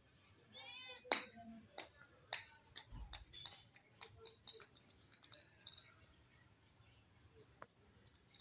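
Hollow plastic ball bouncing on a hard marble tile floor, starting about a second in: sharp clicks that come faster and fainter until the ball rolls. A single faint tap follows near the end.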